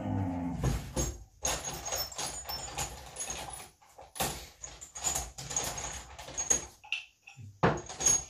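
Steel parts clinking and clattering as someone rummages among them for a pin, with a brief pitched scrape at the start and many irregular metallic knocks that ring briefly.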